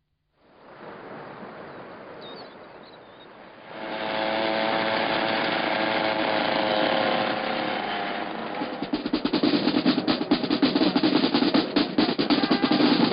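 A motorcycle engine running steadily with road and wind noise, then from about the middle a marching band's snare drums start a fast drum roll that grows louder and more uneven.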